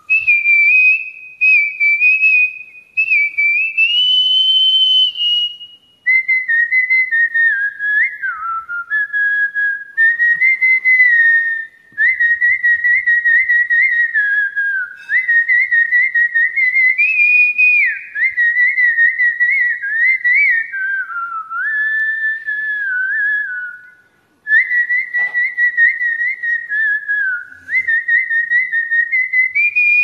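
A person whistling a song melody by mouth, unaccompanied: a single clear tone that steps and slides from note to note, in phrases with brief pauses between them.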